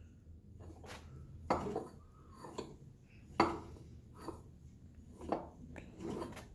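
Sharp metallic clunks and clinks, about eight at uneven intervals, each ringing briefly, from a used Whipple 3.4 L supercharger that has a bad bearing.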